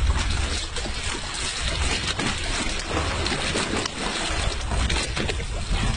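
Boat at sea: a steady rush of wind and water with a low rumble underneath.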